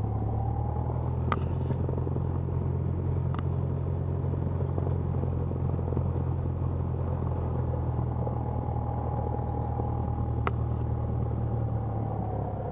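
Cessna 172's piston engine running steadily at low power, a steady drone heard from inside the cockpit. A faint steady whine sits above it, with a few light clicks.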